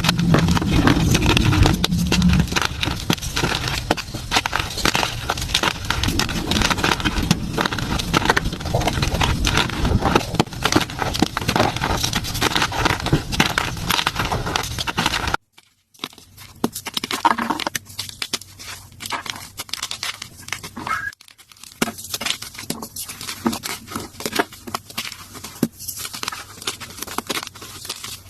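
Blocks of gym chalk being crushed, a dense run of crunching and crackling. About halfway through it stops for a moment, then resumes as sparser, quieter crunches.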